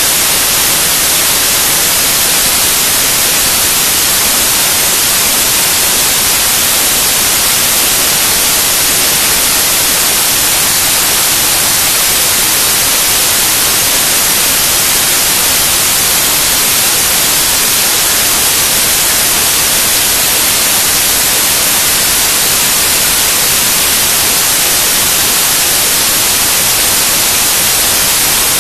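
Loud, steady digital static hiss with no changes: raw file data written to a Mini DV tape and read back as the tape's audio.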